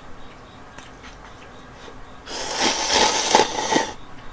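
A person slurping broth from a large cup-noodle bowl: one noisy slurp of under two seconds, starting a little over two seconds in.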